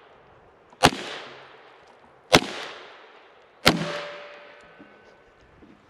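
Three single shots from a Kel-Tec Sub 2000 9mm carbine, about a second and a half apart, each trailing off in a long echo.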